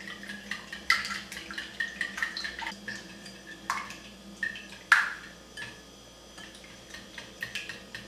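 Wire whisk beating a liquid egg-and-milk batter in a glass bowl: wet sloshing with quick irregular clicks of the wire tines against the glass.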